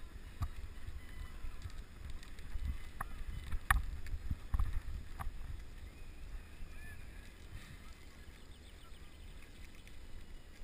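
Low rumble of wind and road vibration on a road bike's handlebar-mounted camera, with scattered clicks and knocks from the bike, the sharpest a little under four seconds in.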